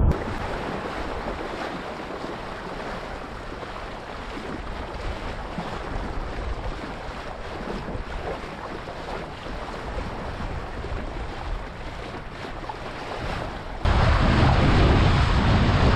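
Sea water rushing and splashing with wind on the action-camera microphone, from a windsurf board under way. About 14 s in it abruptly gets louder, with heavy wind buffeting the microphone.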